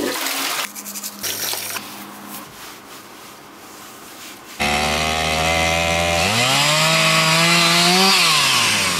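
A chainsaw engine starts suddenly about halfway through and runs at a low idle. It is then revved up to a high, held note and eases back down near the end. Before it there is quieter rustling noise over a low hum.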